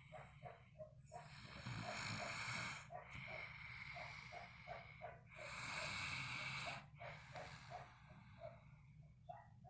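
Snoring: three long, noisy breaths, then softer breathing near the end, over a soft rapid fluttering.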